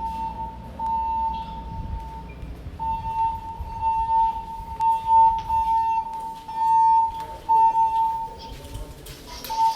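Fire alarm voice evacuation system sounding its alert tone between announcements during an alarm test: one steady, high, flat tone, broken by a few short gaps.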